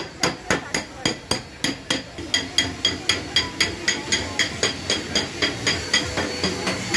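Hammer striking metal in a steady, rapid rhythm, about three to four blows a second, each blow leaving a short metallic ring.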